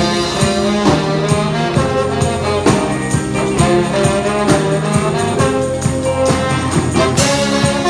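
Band music with a brass section of trumpets and trombones over a steady beat.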